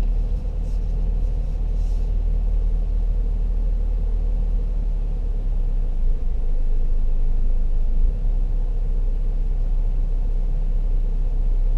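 A Ford car's engine running at idle as the car creeps in reverse, heard from inside the cabin as a steady low rumble.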